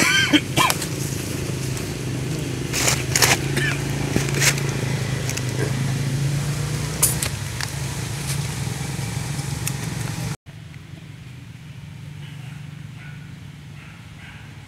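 A steady low engine hum from a motor vehicle running close by, with a few sharp clicks and a short bending call right at the start. About ten seconds in it cuts off suddenly, leaving a much quieter background.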